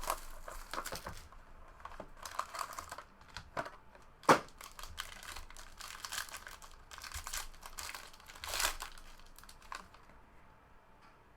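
Crinkling and tearing of a trading-card box's packaging as it is opened by hand, rustling in short irregular spells. There is one sharp snap about four seconds in, and it goes quieter near the end.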